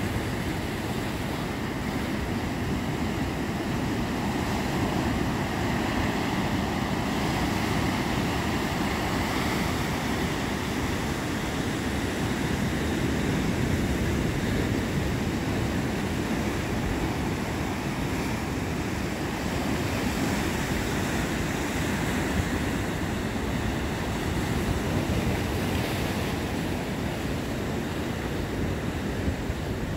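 Ocean surf breaking and washing over a rocky shore, a steady rushing noise, with wind blowing on the microphone.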